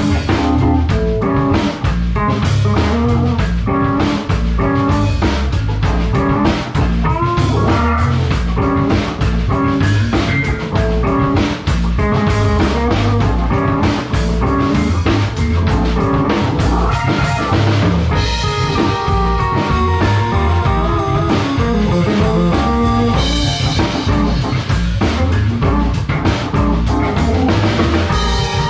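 Small band playing instrumental fusion: hollow-body electric guitar over electric bass and a drum kit keeping a steady beat.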